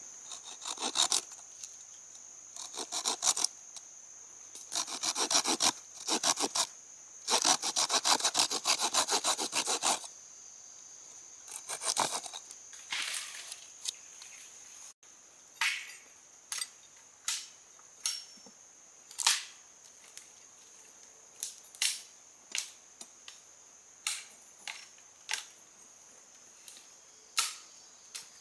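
Wood being sawn by hand in a series of rasping strokes, followed by a string of sharp separate knocks about once a second.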